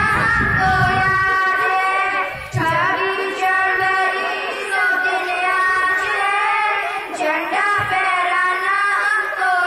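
Two girls singing a song together through microphones, holding long wavering notes.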